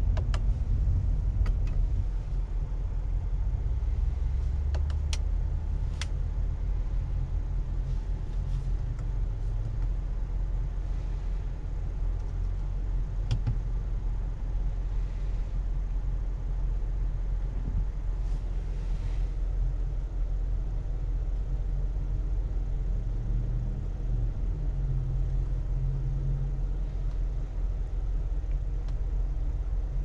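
Cadillac Escalade ESV at idle, heard from inside the cabin as a steady low rumble. Several sharp clicks in the first six seconds and one more about 13 seconds in come from steering-wheel and console controls being pressed.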